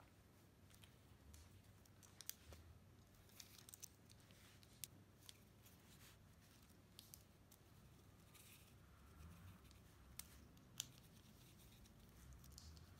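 Near silence with faint, scattered small clicks and ticks of hard plastic kit parts and a screwdriver being handled while a planetary gear unit is put together.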